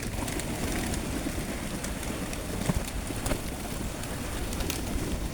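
Pigeons cooing as a group at feed, with a few scattered sharp clicks.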